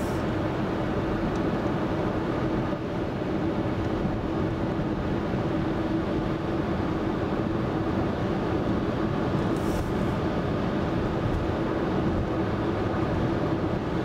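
Steady road noise inside a 2014 Kia Forte5 cruising at highway speed: tyre and engine noise with a steady hum running through it.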